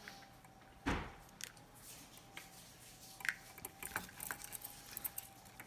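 Cockatiel's beak clicking and tapping against a small plastic cup as it eats. A louder knock comes about a second in, then a scatter of quick clicks.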